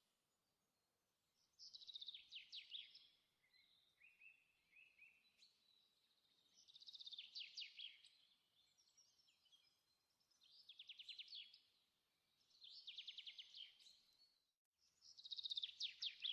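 A small songbird singing: a short, fast, high trill of rapid notes, repeated five times, each phrase about a second long with a few seconds between.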